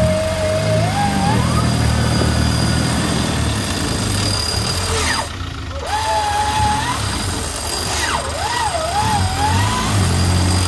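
Off-road vehicle engine running steadily, with a high wavering whine that rises and falls in several spells over it and a brief dip about five seconds in.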